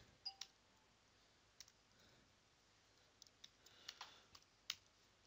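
Faint computer keyboard keystrokes: a few scattered, irregular key clicks as a command is typed.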